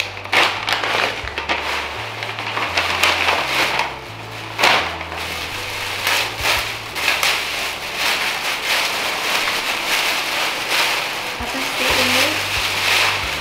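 Wrapping paper and tissue paper crinkling and tearing as a gift is unwrapped by hand, with many sharp crackles. Background music with a low bass line plays underneath.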